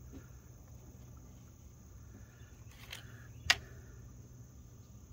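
Crickets chirping steadily over a low steady hum, with a brief rustle and then one sharp click about three and a half seconds in.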